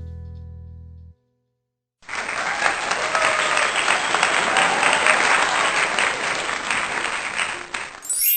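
Crowd applause, steady clapping for about six seconds, following the fading end of a strummed guitar chord. A bright rising chime starts right at the end.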